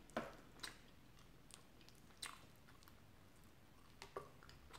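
A person chewing a mouthful of chicken tikka masala and rice: faint, with a handful of short, wet mouth clicks spread through it.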